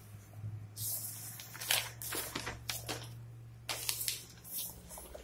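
Paper notebook pages being handled and turned: a series of short rustles and crinkles of paper.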